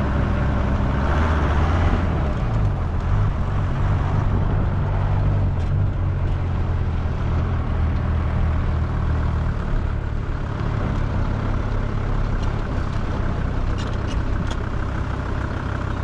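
A motorhome's engine running at low speed as the van rolls over a sandy, stony dirt track, with the tyres adding a steady rustle. The engine note shifts slightly a few seconds in, then holds steady.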